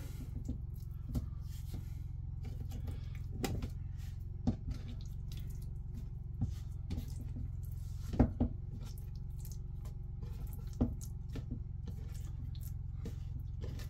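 Raw chicken breasts being turned over by hand on a wooden cutting board: scattered soft wet slaps and taps every second or two over a steady low hum.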